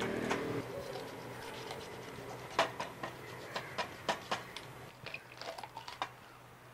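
Knife cutting a raw whole chicken into pieces, with irregular sharp taps and knocks of the blade on the cutting board as the leg and thigh are separated.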